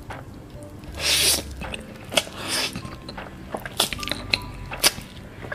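Close-miked slurping and wet chewing of cheese-sauce-covered noodles: a loud slurp about a second in, another around two and a half seconds, then sharp wet mouth clicks, over quiet background music.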